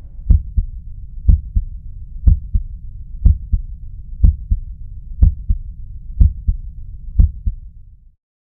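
Human heart sounds, a steady lub-dub at about one beat a second: each beat is a pair of low thuds, the first heart sound (S1, closure of the mitral and tricuspid valves) followed by the second (S2, closure of the aortic and pulmonary valves), over a low hum. The recording cuts off after eight beats.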